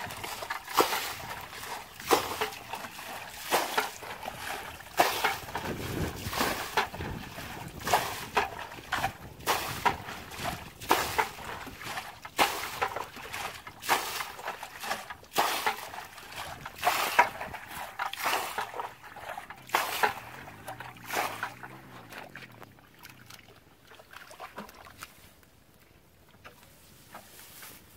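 Muddy water being scooped out of a shallow puddle with a basin and flung aside, a splash about once a second. The splashing stops after about twenty seconds and only faint sloshing is left.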